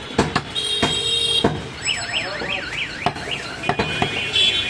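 A heavy cleaver chopping goat meat on a wooden block: a run of sharp, loud chops. In the middle, a high warbling tone rises and falls about three times a second, with steady high tones just before it and near the end.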